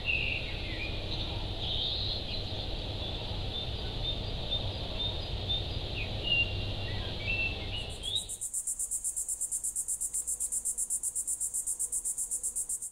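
Rural ambience of birds chirping over a low steady rumble. About eight seconds in it switches to a high, pulsing insect chirring, about six pulses a second.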